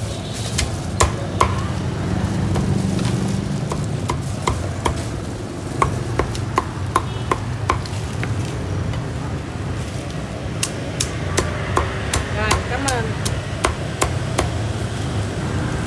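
Meat cleaver chopping crispy-skinned roast pork on a thick wooden round cutting board: sharp single chops about two or three a second, coming faster in the last few seconds, over a steady low hum.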